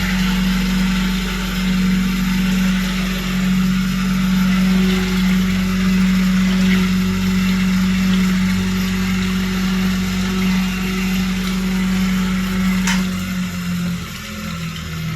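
Motor of a 1973 Chaika-2 washing machine running with a steady low hum and a hiss above it. Near the end there is a sharp click, and the hum falters and gets quieter.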